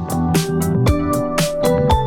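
Instrumental music with no singing: held notes over a steady beat of regular drum hits.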